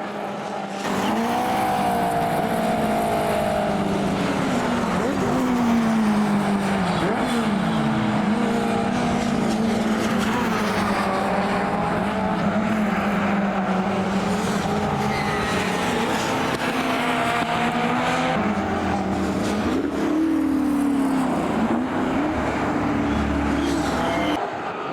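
Pre-1966 classic touring cars racing at full throttle, several engines at once, their revs climbing and dropping sharply as they change gear and pass by.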